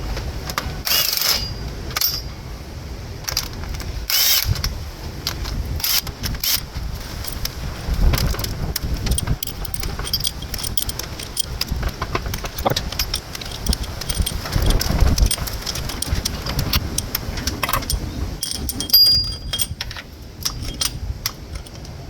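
Hand tools clinking and clicking against metal as the cylinder head bolts are worked loose and taken out: irregular sharp metallic clicks and clanks over a low background rumble.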